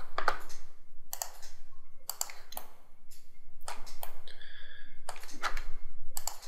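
Irregular clicks of a computer mouse and keyboard as software is worked, a dozen or so sharp taps at uneven intervals.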